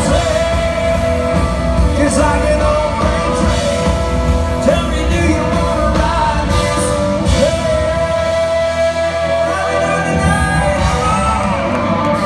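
A live country band playing, with a male lead vocal, fiddle, guitar and drums.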